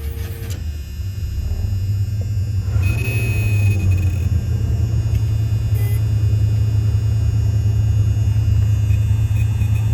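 1973 Cadillac V8 engine started and running at a steady idle, with a low rumble that grows louder over the first few seconds and then holds even.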